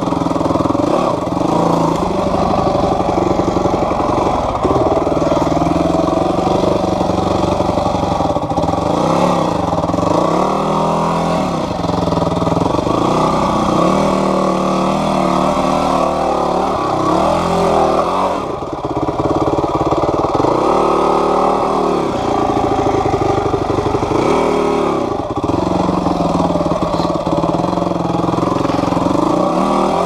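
Yamaha WR250F dirt bike's 250 cc four-stroke single-cylinder engine running, revving up and down over and over as it picks its way over rocks at low speed, with a brief lull about two-thirds of the way through.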